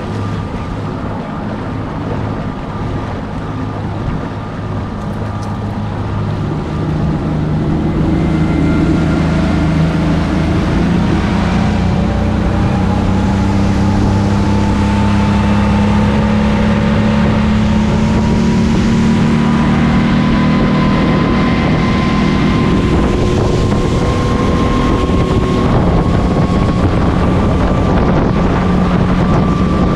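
Motorboat engine running under way, its pitch slowly rising as the boat picks up speed over the first several seconds and then holding steady, with wind buffeting the microphone.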